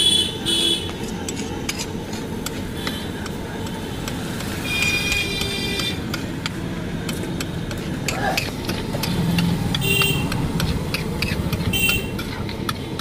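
Metal spatula clicking and scraping on a large flat griddle (tawa) as ghugni chaat is stirred, with a steady traffic rumble and vehicle horns sounding several times.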